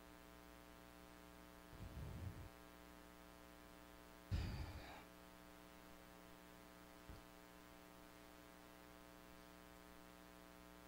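Near silence: a steady, faint electrical mains hum, with two brief, faint noises about two and four seconds in.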